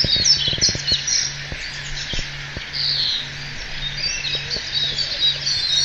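Many birds chirping and trilling together in a dense chorus, over a low hum that pulses about twice a second, with a few light knocks in the first second.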